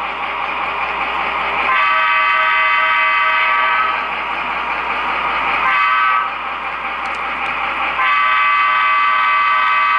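Model train running on a layout: a steady, high-pitched whine made of several tones together, which shifts in pitch abruptly three times.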